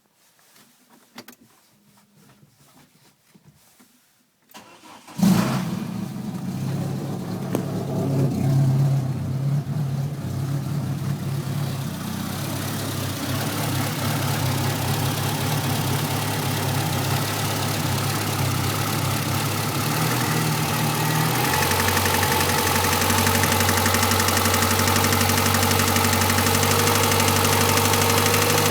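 Renault Clio RS phase 1's 2.0-litre four-cylinder engine being started: a few faint clicks, then the starter cranks briefly about five seconds in and the engine catches with a quick rev. It runs at a raised idle, then the idle note drops to a lower, steady idle about two-thirds of the way in.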